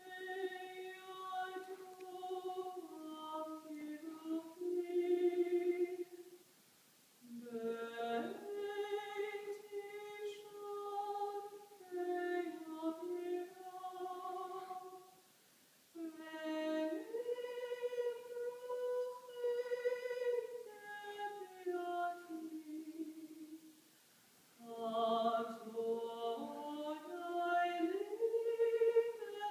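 A woman singing solo without accompaniment, in melodic phrases broken by brief pauses roughly every eight seconds.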